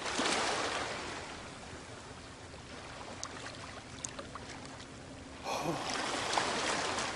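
Small lake waves washing up onto a sandy shore. One surge comes just after the start and fades over a second or so, and another comes about five and a half seconds in.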